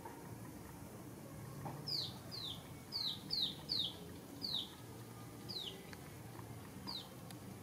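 A string of about eight short, high squeaks, each falling quickly in pitch and spaced irregularly, from an animal calling.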